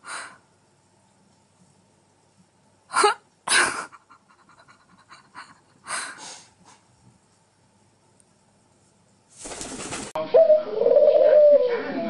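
A few short, sharp noisy sounds a second or more apart, then in the last couple of seconds a collared dove cooing over background noise.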